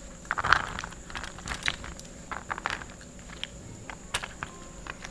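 A spoon scooping and tossing cooked tamarind rice with peanuts: soft scattered clicks and rustles of grains, the loudest cluster about half a second in, over a faint steady high whine.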